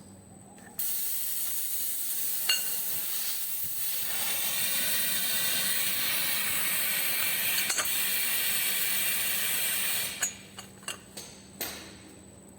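A steady hissing jet of air or spray in a workshop. It starts sharply about a second in and cuts off about ten seconds in, followed by a few light clicks and knocks.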